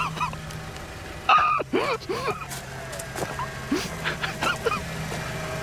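A vehicle engine idling with a steady low hum, with short bursts of voices over it about a second in and again around the middle.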